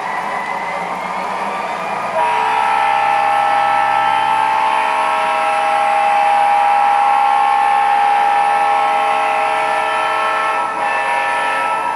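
Model diesel locomotive's onboard sound system sounding one long, steady multi-chime air horn blast. The horn starts about two seconds in and cuts off near the end, over the steady rumble of the three-rail O gauge train running on the track.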